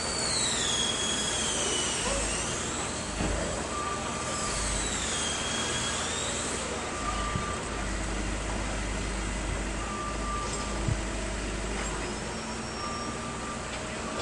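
Military backhoe loader running at a demolition site, with a low engine rumble. In the first several seconds there is high metallic squealing that glides down and back up. From about four seconds in, a short warning beep sounds roughly every two and a half seconds.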